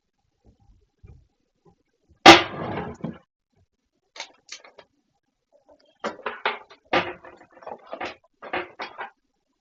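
A person making vocal noises that are not speech. A sudden loud burst comes about two seconds in and fades over about a second, followed by a few short sounds and then a quick string of short noises near the end.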